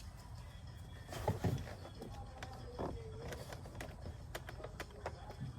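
Faint scattered clicks and light knocks of hands working on a car's plastic interior door panel and its trim clips.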